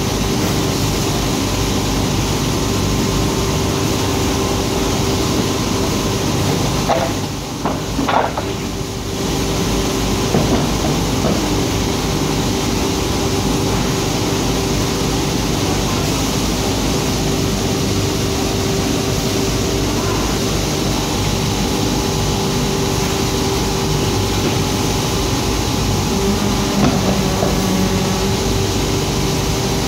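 MG-8DNC paper tube polishing line running: a steady, dense mechanical noise with a constant hum. A few brief higher sounds come about seven to eight seconds in.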